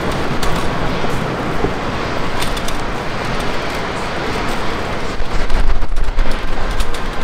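City street traffic noise, steady and loud, with a few sharp clicks and a deep low rumble that swells from about five seconds in.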